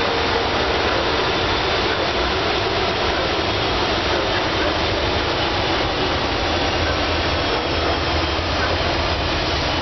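Freight train running, a steady unbroken noise with no horn.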